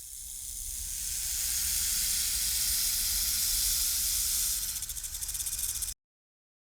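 A long, steady, high-pitched animal hiss that swells over the first couple of seconds. Near the end it breaks into a fast flutter, then cuts off abruptly.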